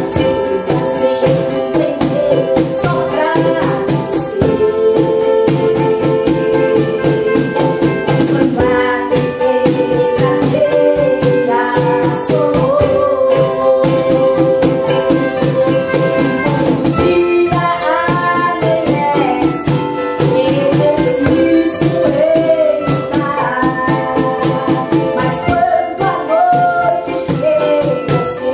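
A woman singing a hymn in Portuguese, accompanied by a strummed acoustic guitar, a ukulele and the steady beat of a cajón.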